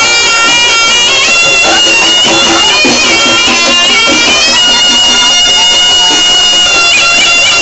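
Reog Ponorogo music: the slompret, a shrill double-reed shawm, plays a high wailing melody over the accompanying ensemble, holding one long note in the middle and breaking into quick turns near the end.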